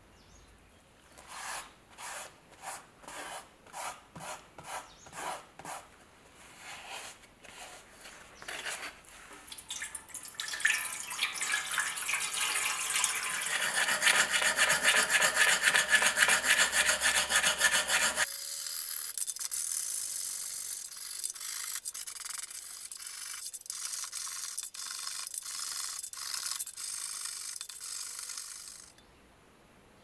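Small wire brush scrubbing rust off metal coffee-grinder parts wet with rust remover. It starts as separate strokes about one and a half a second, then becomes faster continuous scrubbing. Just past the middle it changes abruptly to a thinner, hissier scrubbing that stops near the end.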